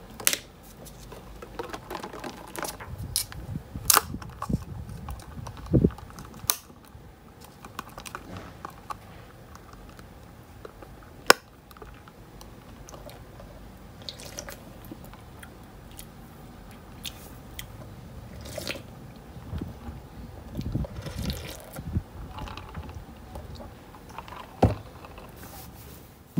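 Handling sounds at a desk: the pages of a thick book being flipped and things being set down, heard as scattered sharp clicks, light crinkles and a few soft thumps. One crisp click stands out a little before halfway, and there are soft thumps about a second in, around four and six seconds in, and near the end.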